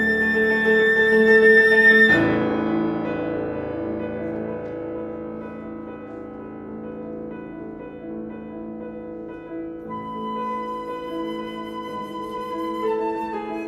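Flute and piano playing a contemporary classical piece: a loud, long held note stops about two seconds in, leaving the piano's sound ringing and fading softly, and the flute comes back in with long sustained notes near the end.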